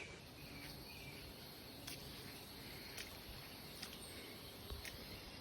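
Faint outdoor background noise with a few soft ticks spaced about a second apart.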